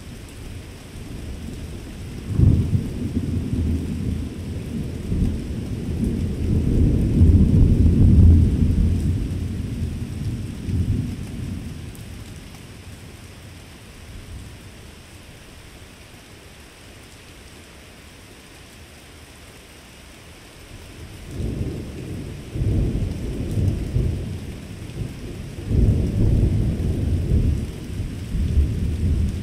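Thunder rolling in two long peals. The first breaks suddenly about two seconds in, swells, and rumbles for about nine seconds before fading. The second builds about twenty-one seconds in, with a louder crack a few seconds later.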